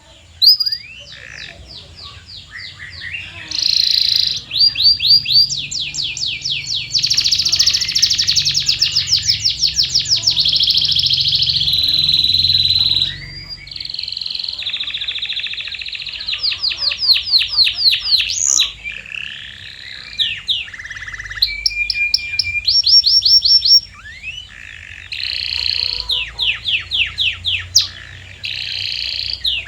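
Canary singing a long, loud song made of phrases of rapidly repeated notes and trills. Each phrase holds one note type for a second or more before switching to another, with short breaks about halfway through and again later.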